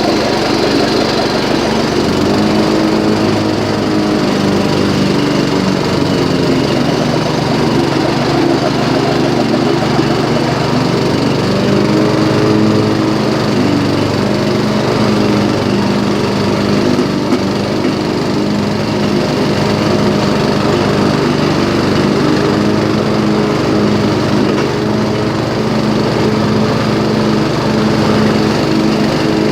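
Small engine of a Yard Machines machine running steadily in first gear, with its drive belt squealing.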